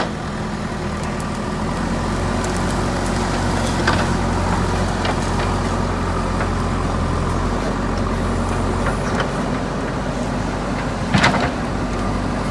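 JCB 3DX backhoe loader's diesel engine running steadily, with a short knock about four seconds in and a louder brief clank near the end.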